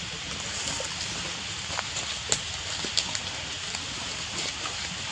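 Steady outdoor background hiss with a few brief sharp clicks, the loudest about two and a half seconds in.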